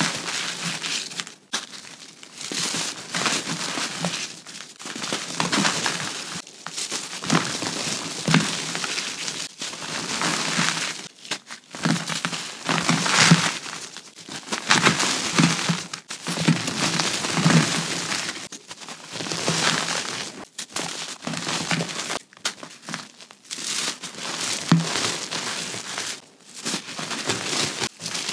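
Gritty gray reformed gym chalk, mixed with black sand, crushed and crumbled by hand. The chalk gives a run of gritty crunches one after another, with dust and grains sifting down between them.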